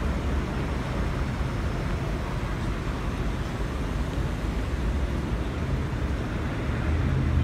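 Steady low rumble of vehicle engines and road traffic, growing a little louder near the end.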